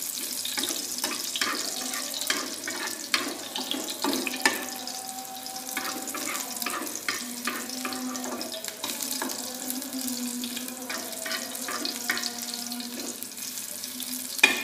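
Sliced shallots and garlic sizzling in hot cooking oil in a small frying pan, with a utensil clicking and scraping against the pan as they are stirred.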